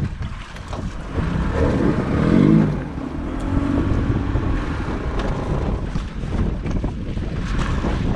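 Wind buffeting the microphone over the wash of sea water around a small outrigger fishing boat. A brief pitched sound comes about two seconds in and is the loudest moment.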